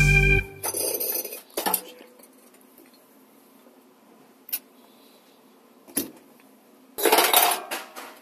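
Music stops about half a second in. Then come short clattering bursts of hard objects about a second in and again near the end, with two single sharp clicks between them.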